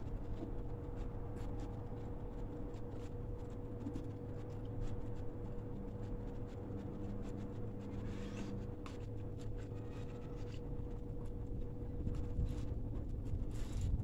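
Hand-eating sounds: fingers mixing rice, fried fish and vegetables on a plate, giving many small clicks and scratches over a steady low hum. Two short hissy smacks come about eight seconds in and near the end.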